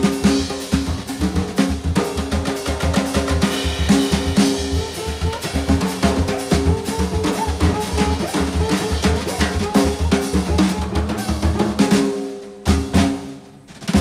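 Live drum kit playing a busy groove of kick, snare, rimshots and cymbals under held low notes from the rest of the band. About twelve and a half seconds in the music drops away almost to nothing, with one hit, before the band comes back in.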